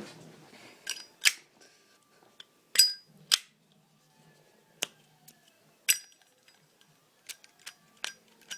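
Zippo lighter worked by hand: a series of about ten sharp metallic clicks and clinks from the lid and the thumb-struck flint wheel, irregularly spaced and loudest in the first six seconds, as it fails to light because the flint is used up.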